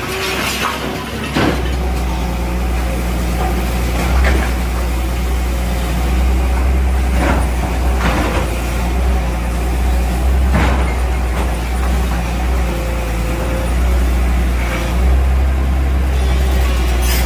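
Heavy diesel engine of a bulldozer demolishing a house, running with a steady low rumble, with several sharp knocks and crashes as it works.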